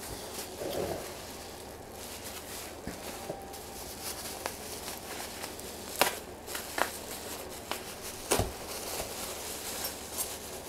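Bubble wrap and plastic packaging rustling and crinkling as it is handled, with irregular clicks and crackles and a couple of sharper snaps, about six and eight seconds in.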